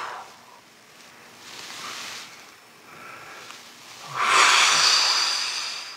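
A person breathing deeply while holding a stretch: a long exhale fading at the start, two softer breaths, then a long, loud exhale from about four seconds in.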